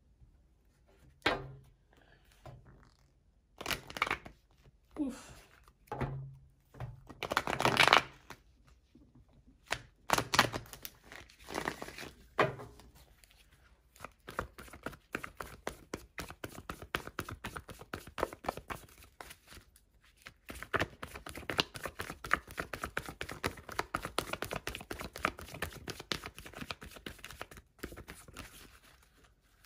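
A deck of tarot cards shuffled by hand: a few separate knocks and thuds in the first several seconds as the deck is handled, then a long run of quick papery flicking as the cards slide and riffle against each other.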